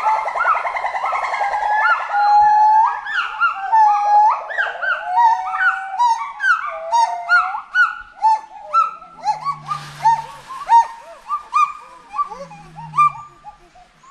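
Gibbons singing: a wavering trill gives way to a run of rising whooping notes that get faster and shorter, with a couple of low hoots near the end.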